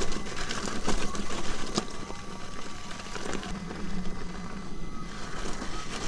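Electric unicycle riding over a rough gravel trail: tyre noise on loose stones with scattered clicks and knocks, and a faint steady whine from the wheel's hub motor underneath.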